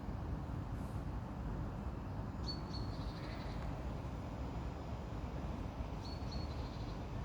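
A bird giving two short bursts of quick high chirps, a few seconds apart, over a steady low rumble.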